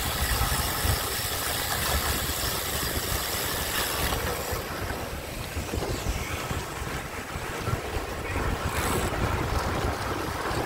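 Wind buffeting the microphone of a camera carried on a moving road bike, a steady rushing noise with a fluctuating low rumble. A higher hiss eases about four seconds in.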